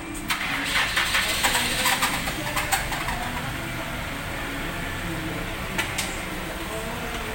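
Hand tools clicking and clattering against car parts during radiator removal: a quick run of sharp metallic clicks for the first few seconds, then two more clicks about six seconds in, over a steady background hum.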